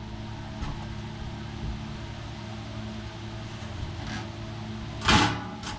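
Steady mechanical hum of a running machine, with a short loud clatter about five seconds in.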